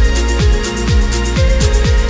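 Electronic dance music with a steady kick drum, about two beats a second, and crisp high percussion between the beats.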